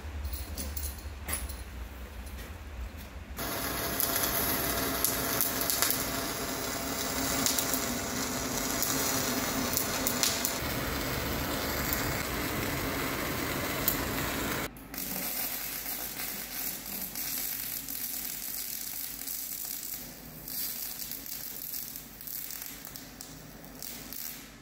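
MIG welding arc running steadily as the new wear-plate skin is welded into an excavator bucket. The sound changes abruptly about three seconds in and again about fifteen seconds in, and the middle stretch is the loudest.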